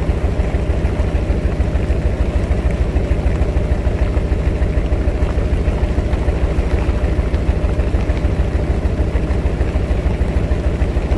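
Trawler's engine running steadily, a loud, fast, even low thudding beat with a hiss above it.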